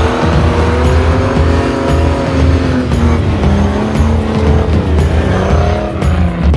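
Off-road buggy engine revving hard under load, its pitch slowly rising and falling, over background music with a steady thumping beat.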